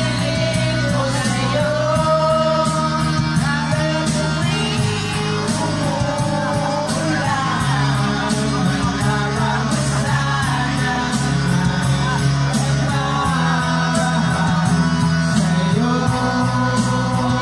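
A man singing karaoke into a handheld microphone over a backing track with a steady bass line that changes note every few seconds.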